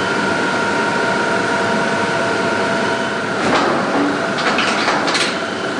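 Steady industrial machinery noise, an even hiss with a constant high whine, joined about three and a half seconds in by a few brief harsh noises.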